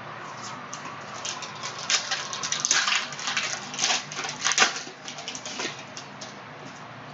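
Crinkling and tearing of a trading-card pack's foil wrapper as it is ripped open, with the cards rustling; a quick run of sharp crackles, busiest in the middle.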